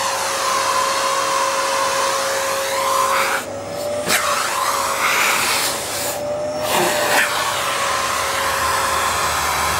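Vacuum cleaner running with a steady rushing hiss and motor whine, its hose nozzle on a cat's tail. Twice, about a third and two thirds of the way through, the hiss briefly drops away and the whine rises a little.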